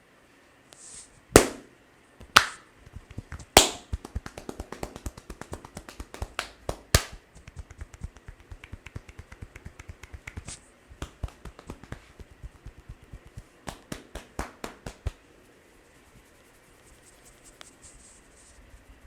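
Sharp cracks and snaps from a barber's hands working a head massage: a few loud single cracks in the first seven seconds, then a fast run of light tapping clicks that stops about fifteen seconds in.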